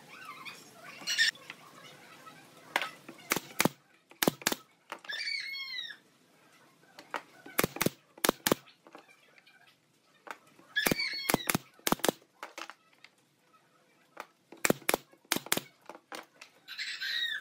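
Pneumatic brad nailer firing nails into pine slats, in quick groups of three to five sharp shots every few seconds. A few short pitched calls sound between the groups, and a brief hiss comes near the end.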